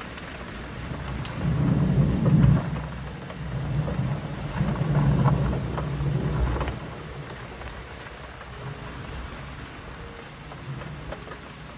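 Steady rain with a long, deep roll of thunder that builds about a second and a half in, swells again twice, and dies away after about seven seconds.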